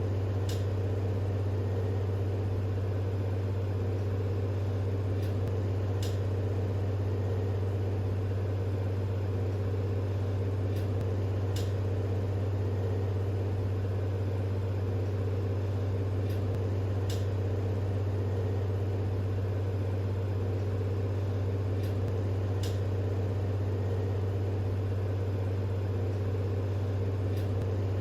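Steady low hum of an 808 nm diode laser hair-removal machine running, with faint short ticks recurring about every five and a half seconds.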